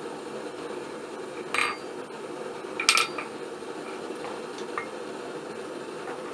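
Two ringing clanks of steel against steel, about a second and a half and three seconds in, the second the louder, with a few faint clinks after. Under them is the steady low roar of a double-burner gas forge.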